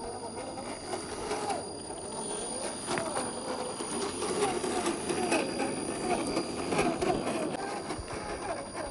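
1/10-scale RC crawler's electric motor and gear drivetrain whining, the pitch wavering up and down with throttle and load, with a few scattered clicks.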